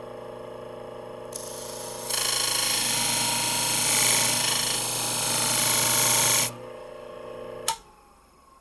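Electric sharpener's 1,200-grit plate spinning with a steady motor hum, then a steel shear blade ground against it with a loud hissing grind for about four seconds. Near the end it is switched off with a click and the motor winds down, its pitch falling.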